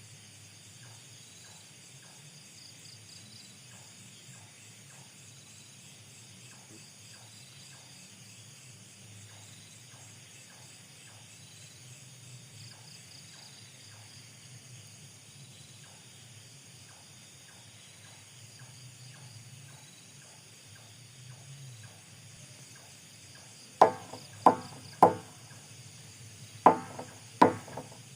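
A steady chorus of night insects chirring. Near the end, a series of loud, sharp knocks breaks in: three in quick succession, then two more, then another.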